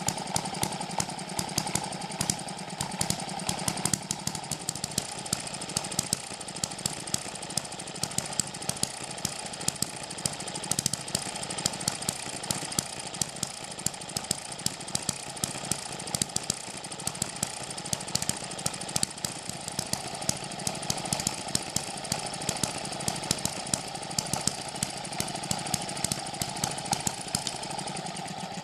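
Eachine ET6 single-cylinder hit-and-miss model engine running on its flying ball governor: a rapid mechanical clatter broken by sharp firing pops at uneven intervals. The uneven firing comes from the governor holding the exhaust valve open to skip firing strokes and keep speed within a narrow range. It cuts off abruptly at the very end.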